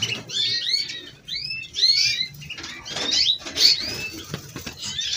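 Canaries singing: a run of quick whistled notes that sweep up and down in pitch, one after another and overlapping.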